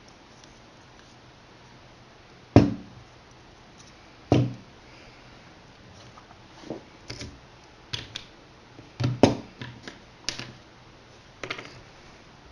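Irregular knocks and clicks: two loud knocks about two seconds apart, then a scattering of lighter clicks and taps.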